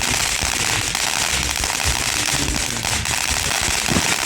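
Fireworks crackling: a dense, continuous stream of small pops and crackles in quick succession.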